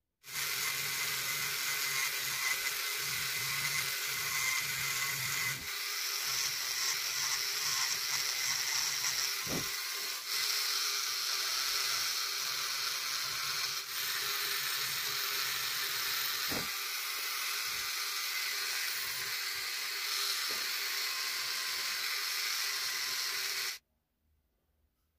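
Dremel rotary tool running at high speed with a small carving burr cutting into walnut wood: a steady whine with a grinding hiss, dipping briefly a few times and cutting off suddenly near the end.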